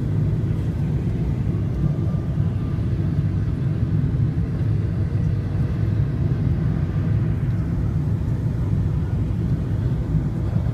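Cabin noise of a Boeing 777-300ER on final approach to landing: a steady low rumble of engine and airflow noise heard from a window seat over the wing.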